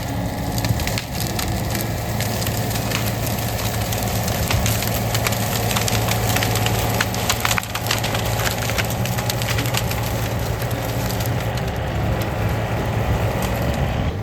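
Excavator engine running steadily while the bucket and thumb tear through dense honeysuckle and vine brush, with many crackles and snaps of breaking branches throughout.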